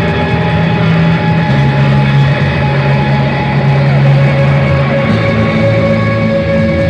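Live instrumental post-rock band playing loudly, with layered guitars holding ringing notes over a bass line that changes note about a second and a half in and again near five seconds.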